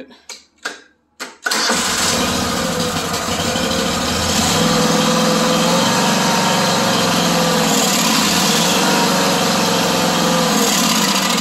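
Kohler CV25 V-twin engine on a riding mower starting on choke, catching abruptly about a second and a half in, then running steadily.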